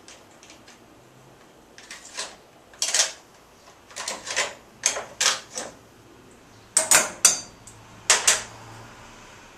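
Irregular groups of sharp metallic clicks and clinks from a socket wrench working loose the 10 mm bolts that hold the carburetor on. They come in short clusters about a second apart, the loudest near the end.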